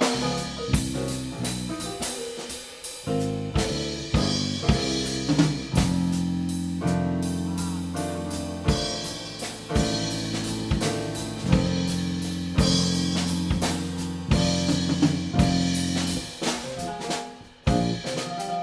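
A small live band playing an instrumental tune: a drum kit keeping a steady beat with snare and bass drum hits, under electric guitar and keyboard with a held low line.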